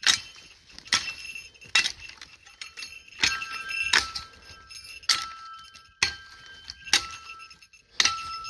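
Small metal camp shovel chopping at dead branches on the ground: eight sharp strikes about a second apart, each leaving a short metallic ring.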